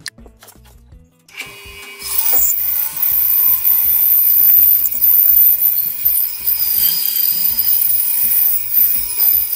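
A bandsaw comes in about a second and a half in and cuts steadily through a thick wooden block, with a high whine and hiss. Background music plays underneath.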